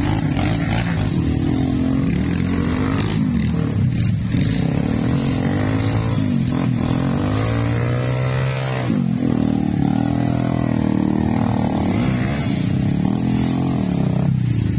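Trail dirt bike engine revving hard under full throttle, its pitch rising and falling again and again, with a sudden drop and pick-up about nine seconds in.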